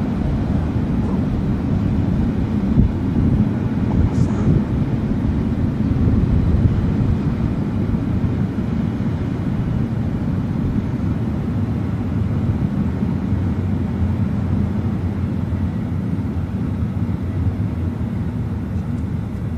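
Long intermodal freight train's wagons rolling steadily past through a station: a continuous low rumble of wheels on rail.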